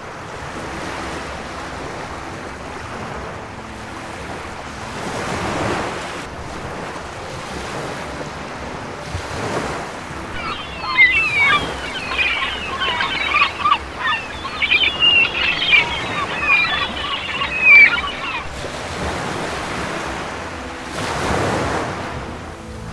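Small waves washing in over a cobble beach, swelling a few times, with wind buffeting the microphone. About ten seconds in, a run of high, squeaky chattering calls lasts for several seconds and is the loudest sound.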